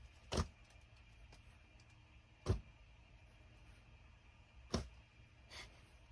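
Three short whooshes about two seconds apart, with a fainter fourth near the end, over a faint steady background hum.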